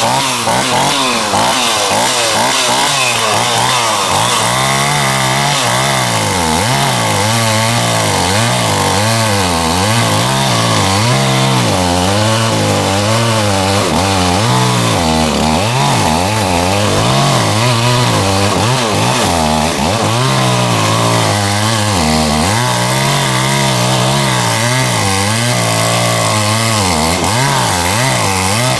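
Stihl chainsaw running at full throttle as it cuts into the trunk of a dead ash tree. The engine pitch keeps dipping and rising as the chain bites into the wood.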